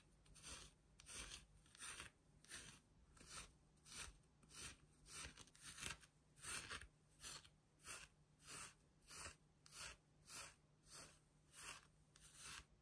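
Small plastic comb brushing through a plush troll doll's long synthetic hair: soft, even rasping strokes, about three every two seconds, stopping just before the end.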